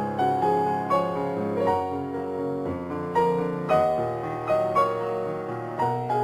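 Slow background piano music, notes struck about twice a second, each fading away over held lower notes.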